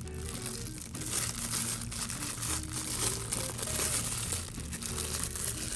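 Packaging crinkling and rustling as a new pocket knife is unwrapped, with crackly handling noise throughout and soft background music underneath.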